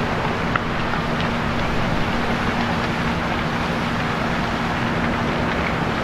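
A steady rushing roar with a constant low hum beneath it, like an engine running at a fixed speed.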